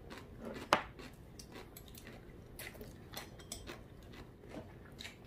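Quiet mealtime sounds: scattered light clicks of chopsticks against plates and bowls, with one sharper click just under a second in.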